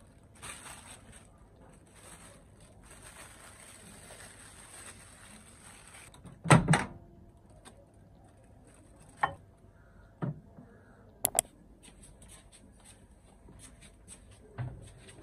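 Plastic bag crinkling softly, then a loud knock followed by a few sharp clicks and a quick double click from a Comfee countertop microwave's door being opened and shut.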